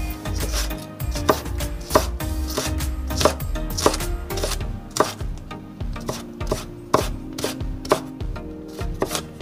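A kitchen knife slicing garlic cloves on a wooden cutting board: the blade knocks against the board about twice a second, unevenly spaced.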